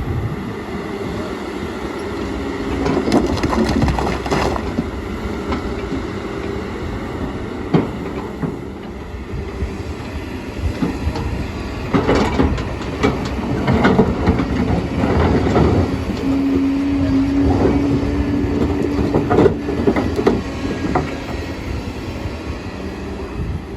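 Kobelco excavator's diesel engine running steadily under load, with clusters of stones knocking and scraping a few seconds in, through the middle and near the end. A steady whine holds for about three seconds past the middle.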